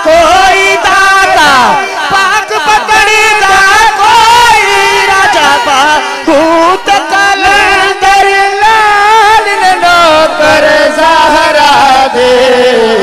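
Male naat reciter singing a long, wavering melodic line in Punjabi through a microphone and PA, over a steady drone.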